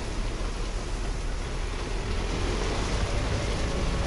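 Steady, loud rumbling noise, heavy in the low end, with a faint steady tone in the middle.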